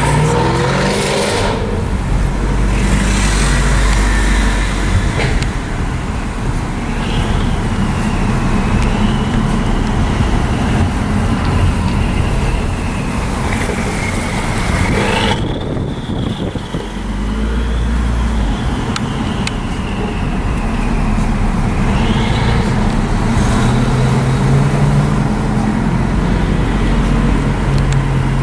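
Car engines running in street traffic, a steady loud rumble that swells twice. A thin high whine wavers up and down through the middle.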